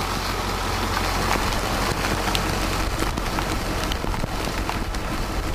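Rain falling on a vehicle: a steady hiss dotted with many small drop ticks, over a low steady rumble.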